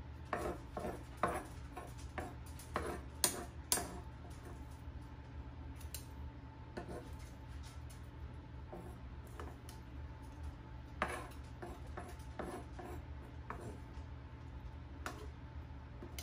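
Metal tongs and a slotted metal spoon scraping and tapping on a wooden cutting board and clinking against a ceramic bowl as chopped chicken is scooped across. The clicks and scrapes come in irregular clusters, busiest in the first few seconds and again around eleven to thirteen seconds in, over a steady low hum.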